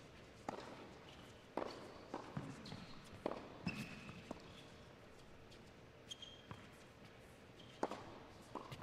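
Tennis doubles rally on an indoor hard court: sharp racquet-on-ball strikes several times, with short high squeaks of shoes on the court between them.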